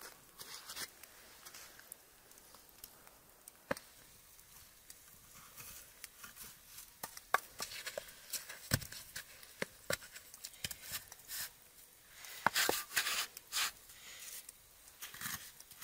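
Snow crunching and scraping as snow-covered bricks are handled, with sharp knocks of the bricks being set down on icy ground. The sounds come in irregular bursts, the loudest cluster about three-quarters of the way through.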